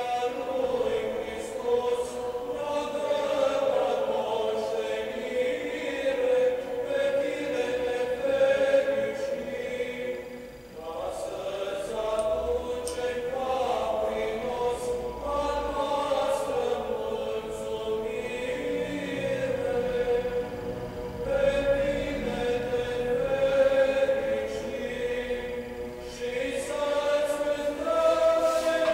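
A choir chanting in long, slow, held phrases, with short breaks between phrases about ten and twenty-one seconds in.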